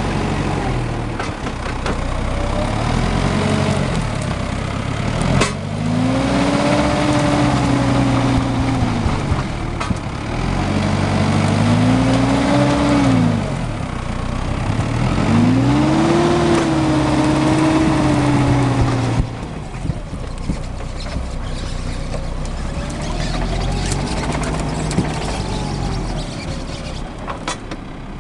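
Valtra forestry tractor's diesel engine revving up and easing off in about four long surges as it strains to pull a loaded log trailer through deep mud. After about two-thirds of the way through it drops back to a lower, steadier run.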